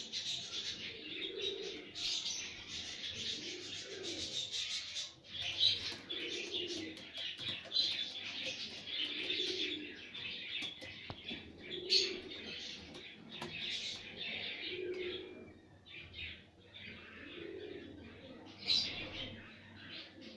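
Caged birds chirping and chattering constantly, with a low dove-like coo repeating about every two and a half seconds.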